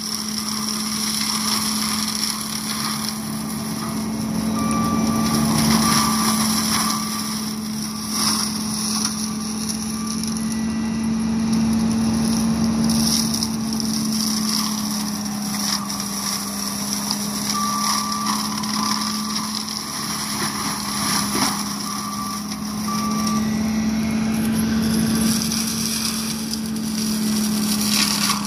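John Deere 333G compact track loader running under load, its MH60C mulching head spinning and grinding into brush and saplings. A steady drone with a slight waver, with scattered cracks as the wood is shredded.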